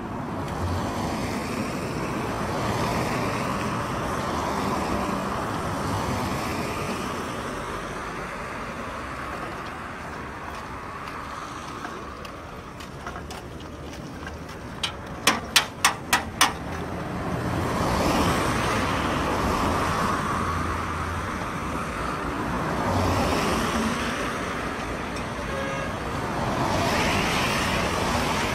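Road traffic passing on a wet road, the hiss of car tyres on wet asphalt swelling and fading as vehicles go by. About halfway through, a quick run of five or six sharp knocks stands out as the loudest sound.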